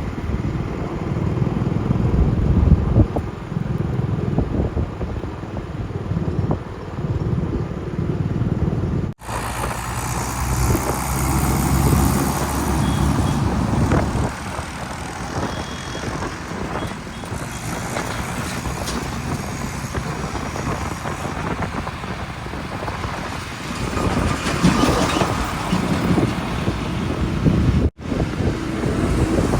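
Heavy diesel machinery running, a steady low engine rumble with mechanical clatter. The sound cuts abruptly twice, about nine seconds in and near the end, as one clip gives way to the next.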